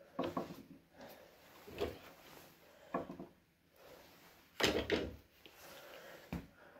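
Handling knocks and clatter from a plastic quick-release bar clamp being worked onto a wooden chair leg: about five separate knocks, the loudest a little past halfway.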